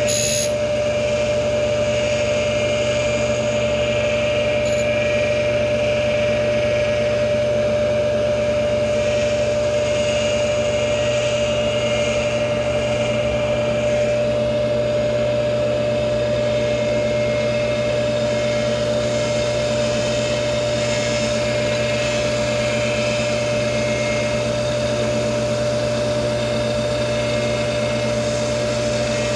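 Tool post grinder running with a steady whine, its white wheel grinding the teeth of a horizontal-mill cutter.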